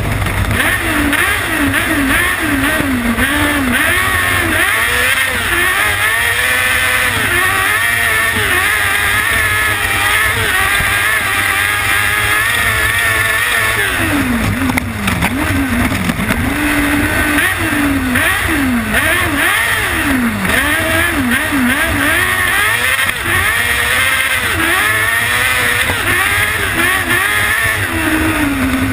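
Onboard sound of a kart cross buggy's 600cc Yamaha R6 inline-four motorcycle engine at race speed, revving up and dropping again and again as it shifts through the gears, over a constant low rumble.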